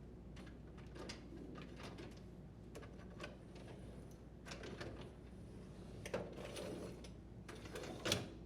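Dishwasher rack being set onto its slide rails: scattered light clicks and rattles of the rack's sliders and rollers, with a short sliding sound about six and a half seconds in and a sharper click near the end.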